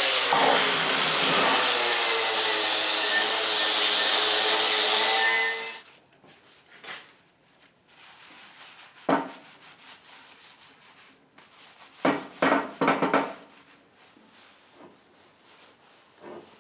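Porter-Cable reciprocating saw cutting through a wooden railroad tie, running steadily and then stopping suddenly about six seconds in. After that, a few separate knocks and clunks.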